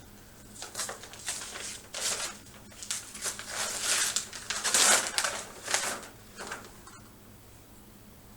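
Paper rustling and crinkling in a string of short bursts as a bid envelope is opened and its pages are handled; it stops about seven seconds in.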